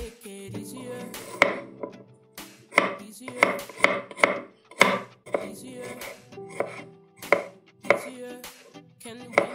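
Chef's knife chopping peeled garlic cloves on a bamboo cutting board: irregular sharp knocks of the blade striking the wood, about one to two a second.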